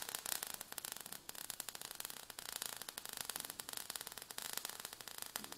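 Faint, dense crackling static: a rapid, irregular stream of tiny clicks.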